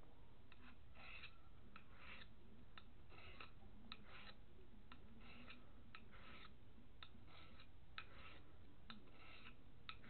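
A pocket knife blade stroked again and again across a handheld abrasive sharpener: about a dozen short scraping passes, each with a light click as the blade meets or leaves the sharpener.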